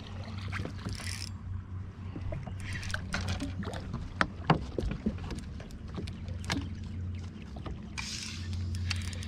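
A hooked smallmouth bass being played at the side of a small boat: short bursts of water splashing at the surface, about a second in, three seconds in and again near the end, with scattered sharp clicks and knocks from the rod and boat, over a steady low hum.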